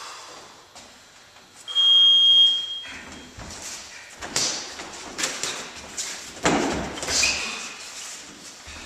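A boxing gym round timer sounds once, a loud steady high beep about a second long, marking the start of a sparring round. After it come scattered knocks and scuffs as the two boxers move and trade punches on the ring floor.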